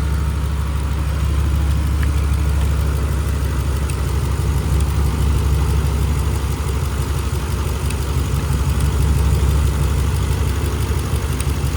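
2011 Ram 1500's 5.7 Hemi V8 idling steadily, running on a jumper wire that bypasses its failed fuel pump relay.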